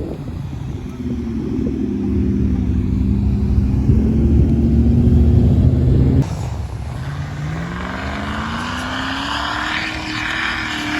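A 4x4's engine running hard, growing louder for about six seconds, then a sudden change and an engine note rising steadily in pitch, with a rushing noise over it.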